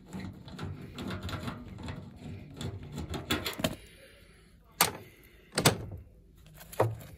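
A nut driver backs out a sheet-metal screw on the air handler's capacitor bracket, making a run of rapid scraping clicks. This is the blower motor's run capacitor being taken out for testing. After that come three sharp metallic knocks, the second one doubled.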